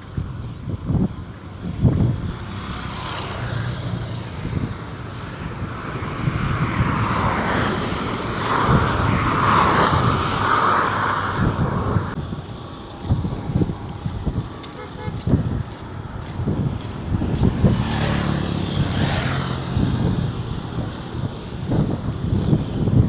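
Road traffic: vehicles pass on the highway, one swelling up and going by at about the middle, another near the end, over low rumbling gusts of wind on the microphone.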